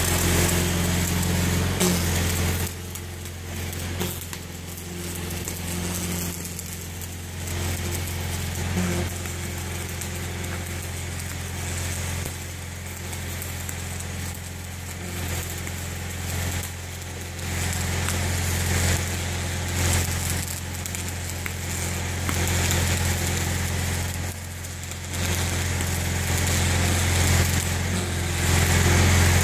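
Stick welder's arc crackling as a rod is run on a steel bracket, getting louder and softer as the arc is struck and broken. Under it, the steady low drone of an engine running throughout.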